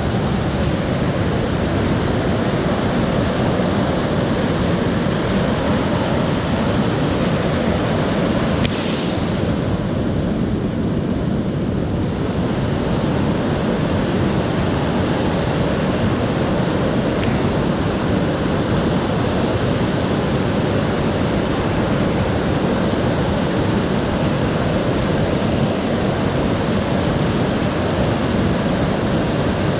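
Steady rush of rain-swollen mountain stream water, a continuous even noise.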